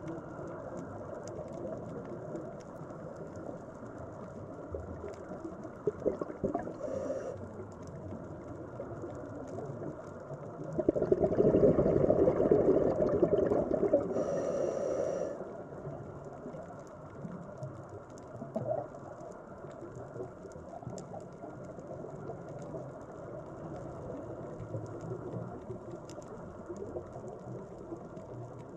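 Underwater ambience picked up by a camera below the surface: a steady, muffled water wash, with a louder rush of bubbling that starts about 11 seconds in and lasts some four seconds.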